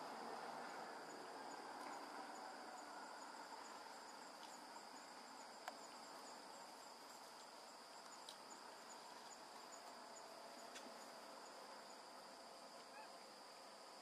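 Faint insects: a steady high-pitched drone with a repeating high chirp, and a few soft ticks.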